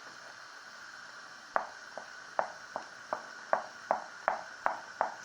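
A spoon knocking against the side of a pot while stirring ramen noodles in boiling water. About ten even, ringing knocks, roughly two and a half a second, start about a second and a half in.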